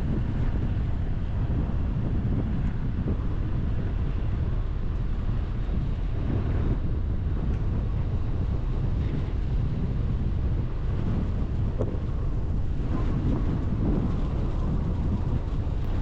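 Steady wind rushing over an action camera mounted outside a moving car, with the car's road and engine noise underneath.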